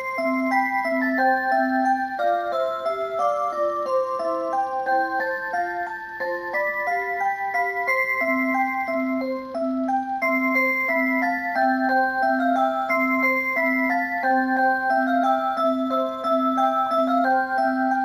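An alarm clock's built-in electronic melody plays a Christmas song in several simple, pure-toned voices, with a low note pulsing regularly underneath. A new tune starts right at the beginning.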